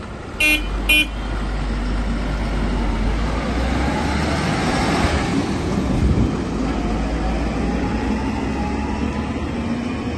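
Two short horn toots about half a second apart, then a 2015 MAN TGM 18.250 curtainsider lorry's six-cylinder diesel engine running as it pulls away and drives off, its note rising as it accelerates.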